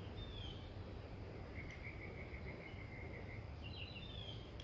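Outdoor ambience with small birds chirping: a short falling whistle near the start, a run of about ten quick, evenly spaced notes in the middle, and a few more chirps near the end, over steady low background noise.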